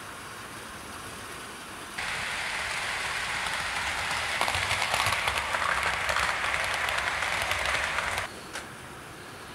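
00 gauge Hornby model train running on the track: a steady whirr, then from about two seconds in a louder run full of fine clicking from the wheels on the rails, which stops abruptly near the end.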